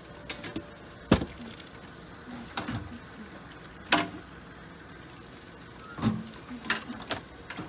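Kitchen clatter at a ramen stall: a steel pot lid and ceramic bowls being handled and set down, making several sharp clinks and knocks, some ringing briefly. The loudest strikes come about a second in and about four seconds in.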